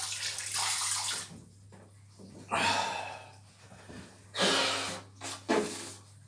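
Tap running while water is splashed onto the face at a bathroom sink, stopping about a second in. Then a towel is rubbed over the face in a few short bursts.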